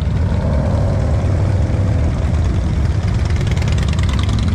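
Motorcycle engines rumbling steadily as a line of bikes rides slowly past on the street, with a rapid exhaust pulse coming through more strongly in the second half.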